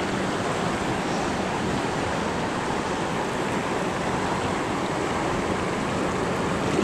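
Shallow stream rapids rushing steadily over rocks close by.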